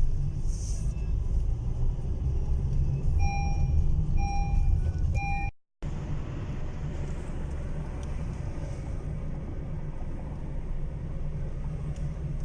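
Steady low rumble of a car driving on the road. About three seconds in come three short, identical beeps, about a second apart. Near the middle the sound cuts out for a moment, then the rumble carries on a little quieter.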